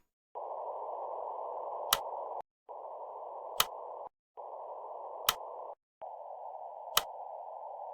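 A narrow band of hiss, pitched around the middle of the range, in four stretches separated by short gaps. A sharp click comes about every one and a half to two seconds.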